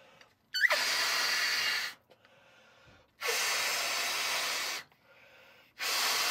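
A toy car's balloon being blown up by mouth: three long breaths blown into it, each about a second and a half, with short pauses between.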